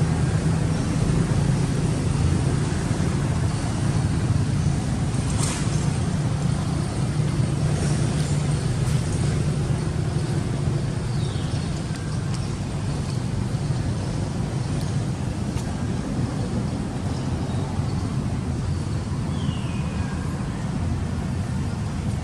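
Steady low background rumble with no clear pitch, with a few faint short high chirps that fall in pitch and some faint clicks.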